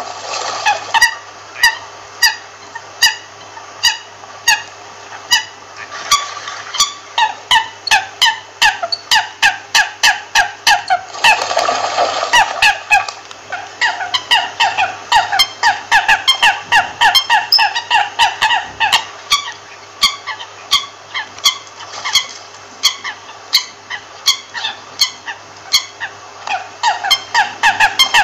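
American coots calling: a steady run of short calls, two or three a second, with a brief stretch of noise about twelve seconds in.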